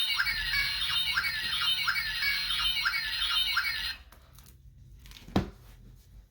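Tinny electronic sound effect from a children's button sound book's small speaker: a warbling pattern that repeats about every three quarters of a second, then cuts off suddenly about four seconds in. A single sharp click follows a little over a second later.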